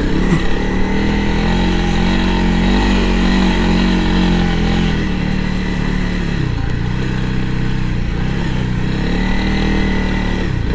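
Honda CRF300L Rally's single-cylinder four-stroke engine running as the bike is ridden along a dirt trail. Its pitch rises and falls with the throttle, dipping about six seconds in and climbing again near the end.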